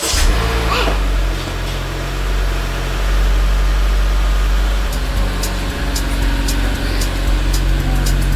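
Car engine running with a steady low rumble, heard from inside the car, with light clicks starting about five seconds in.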